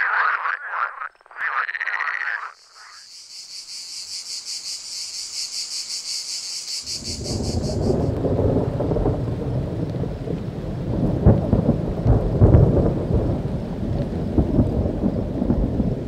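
A montage of nature recordings: a red deer stag roaring for the first two seconds or so, then frogs croaking and a cicada's high buzzing song with a fast even pulse until about eight seconds in, then a thunderstorm with rain and low rolling thunder, loudest around twelve seconds.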